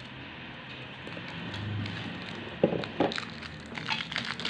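Handling of a plastic-wrapped glass food storage container with a snap-lock lid: a few light knocks and clicks and some rustling as it is turned over in the hands, from about two and a half seconds in.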